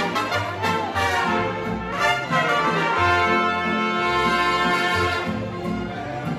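Music led by brass instruments, trumpets and trombones, over a pulsing bass line, with a long held chord about halfway through.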